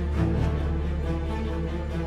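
Background music: sustained chords that change in steps over a steady low bass.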